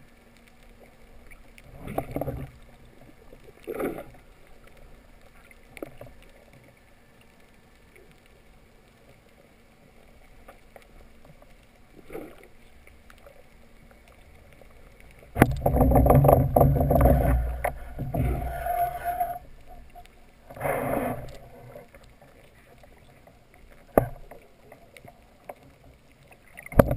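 Muffled underwater noise picked up by a camera in its housing: a few short rushes of water early on, then a loud rushing burst lasting about three and a half seconds about halfway through, another shorter rush, and a sharp click near the end.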